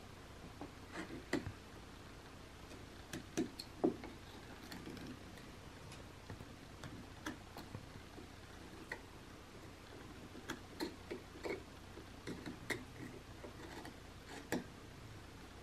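Whittling knife paring small cuts into a basswood figure: a run of short, irregular clicks and scrapes as the blade bites and chips come away, coming in quicker clusters in the second half.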